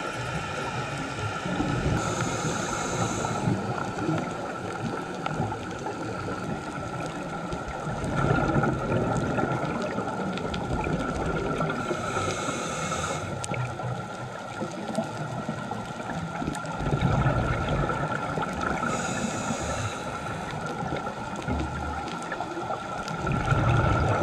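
Scuba regulator breathing heard underwater: three hissing inhalations, each followed some seconds later by a low gurgle of exhaled bubbles, over a steady hum.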